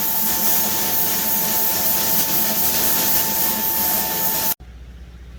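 Air-fed paint spray gun hissing steadily while spraying clear coat, with a steady high tone running through the hiss. It cuts off suddenly about four and a half seconds in.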